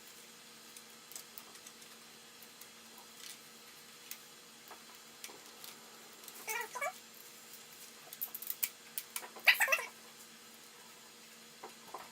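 Two short animal cries, about six and a half and nine and a half seconds in, with a few faint clicks between them.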